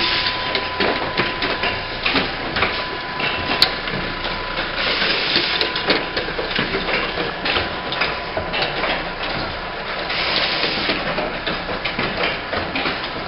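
An insulin syringe assembly machine running, with a continuous rapid clicking and clattering of its mechanisms. Hissing bursts of compressed air from the pneumatic cylinders come near the start, about five seconds in, and about ten seconds in. A thin steady whine runs through the first half.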